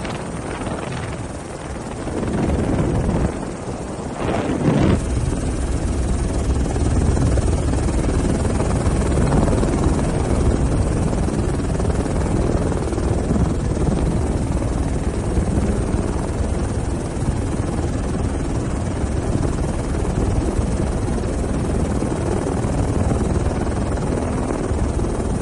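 Police helicopter's rotor and engine, a steady dense drone that grows louder about five seconds in and then holds level.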